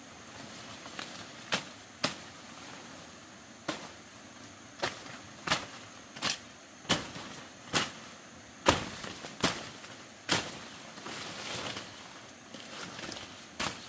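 A hand tool striking hard, about a dozen sharp blows a little under a second apart, followed near the end by scraping and rustling.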